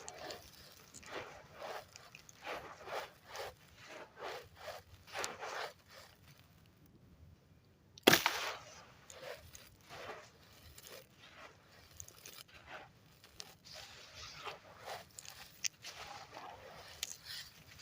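Wet sand-cement chunks being crushed and crumbled in water, a run of gritty crunches at two or three a second. After a short pause, one loud sharp crunch comes about eight seconds in, then the crumbling carries on.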